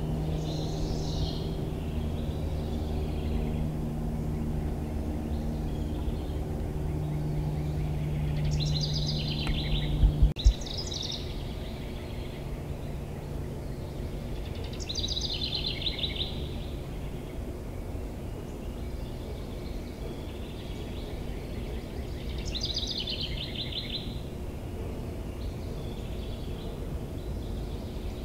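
A songbird sings short, rapidly trilled phrases, about five times, over a steady low hum. A few loud knocks come about a third of the way in.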